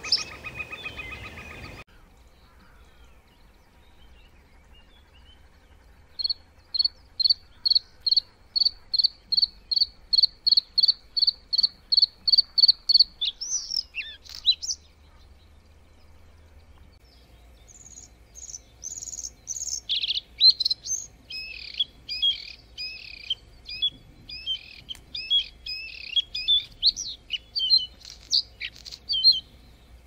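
Small songbird singing: a long series of evenly repeated high notes, about four a second, ends in a short flourish; after a pause of a few seconds comes a fast, varied twittering song that runs nearly to the end.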